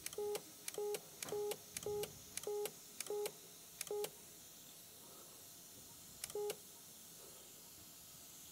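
Electrosurgical generator's activation tone beeping about twice a second while the endoscopic knife is energized in short pulses; each beep is a brief higher note dropping to a lower one. The beeping stops about four seconds in, with one more beep a couple of seconds later.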